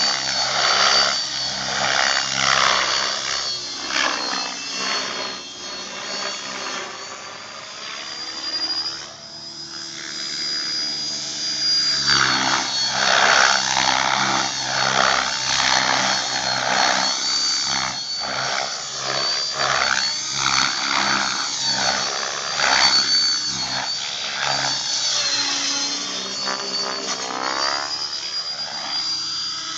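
Thunder Tiger X50-E electric RC helicopter with a Hacker Turnado brushless motor in flight: a thin, steady high whine over the swish of the rotor blades. The sound swells and fades as the helicopter manoeuvres, dipping around a third of the way in.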